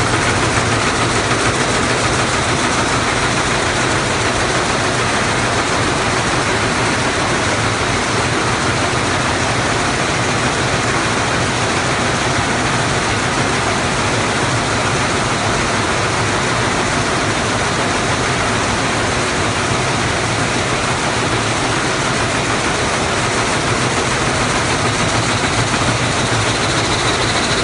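Sulzer G6200 rapier weaving loom with dobby shedding running steadily: a continuous, dense mechanical noise with no pauses or changes.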